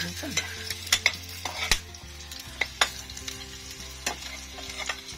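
A metal ladle stirring and scraping in a frying pan of sizzling garlic and onions, with irregular clinks against the pan.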